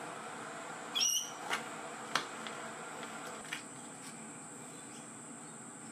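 Handling of a packet of plastic replacement line-trimmer blades: a few light clicks and taps, the sharpest about two seconds in. Behind it, a short chirping call about a second in and a steady high-pitched hum.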